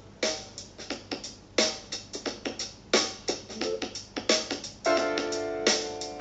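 Instrumental music: short struck notes in a quick, uneven rhythm, then held chords from about five seconds in. It is filler music played during a broadcast's technical break.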